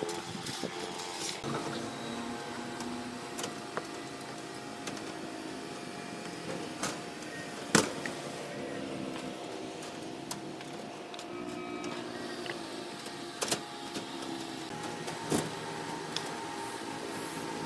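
Scattered sharp metallic clinks of steel reinforcing bars and tie-wire tools being worked by hand on a rebar mesh, the loudest about eight seconds in.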